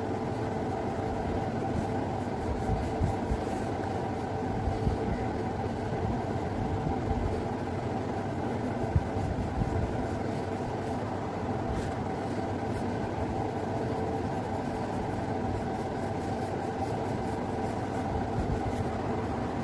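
A steady mechanical drone with several held tones.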